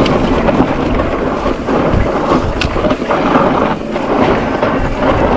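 Wind buffeting the microphone: a loud, steady rush with low rumbling.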